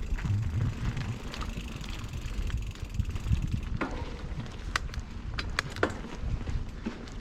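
Bicycle being ridden, with wind buffeting the microphone as a low rumble. Several sharp clicks and rattles come between about four and six seconds in.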